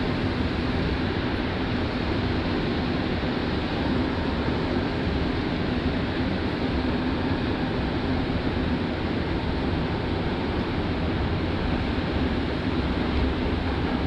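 Montreal Metro rubber-tyred subway train running through a tunnel, heard from inside the car: a steady rumble and rush of running noise with a faint steady hum.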